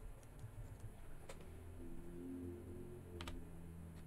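A few faint computer keyboard key presses: a single click about a second in and a quick cluster of clicks a little after three seconds, over a low steady hum.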